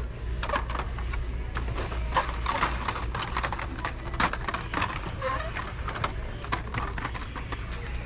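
Hot Wheels blister-pack cards clicking and rustling against one another and the metal display pegs as a hand flips through them, in quick irregular clacks, over a steady low hum.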